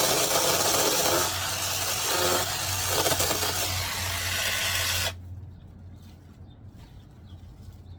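Small battery-powered mini chainsaw running and cutting through a thin tree branch, the sound changing as the chain bites, then stopping suddenly about five seconds in.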